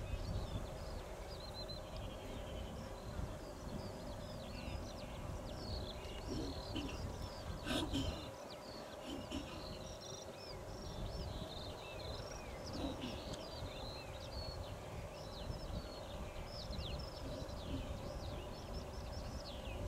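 Open-air ambience of small birds twittering continuously, over a low wind rumble on the microphone and a faint steady hum. A short knock about eight seconds in.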